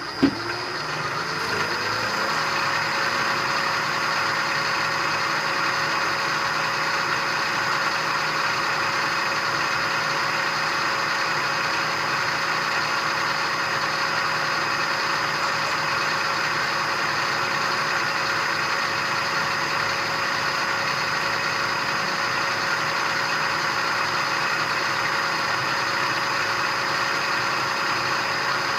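Milling machine spindle switched on with a click, its whine rising for about two seconds as it spins up, then running at a steady speed.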